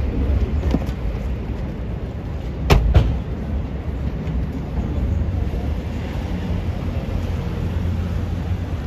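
Street traffic noise: a steady low rumble of vehicles. Two sharp knocks come close together about three seconds in.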